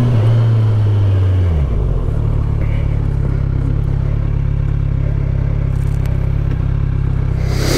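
Kawasaki Z1000SX (Ninja 1000) inline-four engine running under way. Its note drops about a second and a half in and then holds steady. A brief rush of noise comes near the end.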